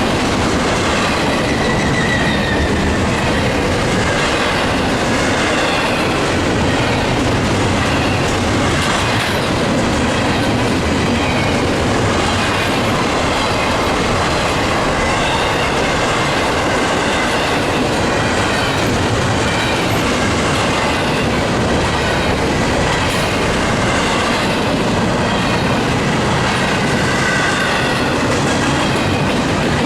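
Intermodal freight cars rolling past at trackside: a steady, loud rumble and clatter of steel wheels on the rails, with faint wavering high squeals from the wheels.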